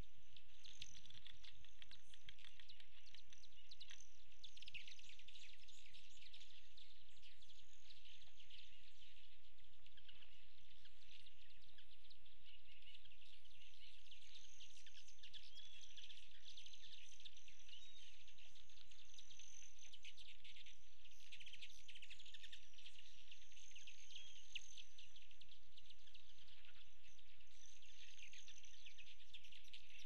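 Outdoor feeder ambience: a dense, continuous stream of high chips and twitters from many small birds, with a thin high insect trill that comes and goes.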